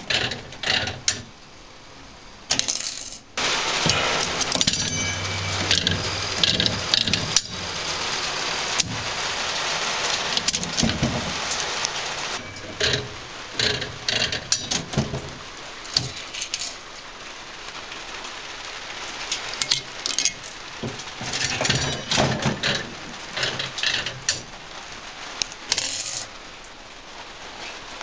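Aristocrat Arcadian 65 mechanical slot machine in play: the reels spin and stop with repeated clicks and clunks from the mechanism. Pennies rattle and clatter into the metal payout tray.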